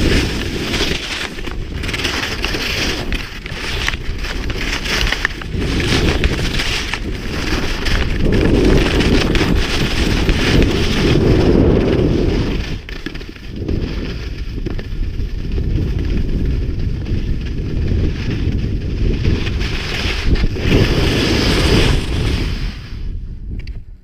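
Wind rushing over the microphone and skis scraping and carving across packed snow during a fast downhill run, with the hiss swelling and easing from turn to turn. The noise falls away sharply near the end as the skier stops.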